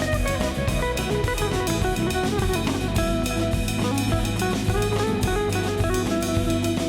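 Background music: a band track with drum kit and plucked guitar, with a steady beat.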